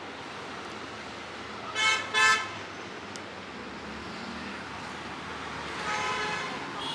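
Vehicle horn honking twice in quick succession, then a quieter, slightly longer honk near the end, over steady road traffic noise.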